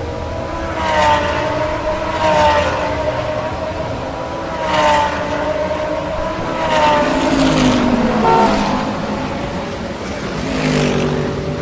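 Race-car engine sounds revving and swelling in repeated pass-by surges, about one every two seconds.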